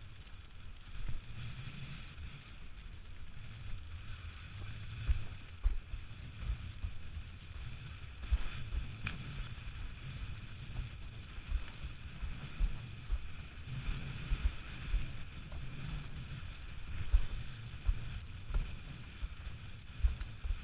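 Windsurf board running fast over choppy water: irregular low thuds as the hull slaps the chop, over a steady hiss of spray, with wind buffeting the microphone.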